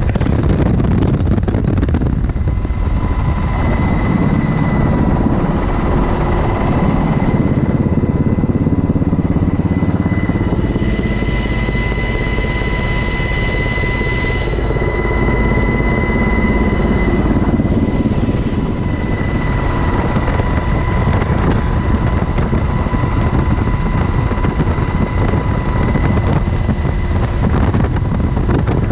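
Loud, steady helicopter noise from inside the cabin with the side door open: the deep drone of rotor and engines under a constant high whine.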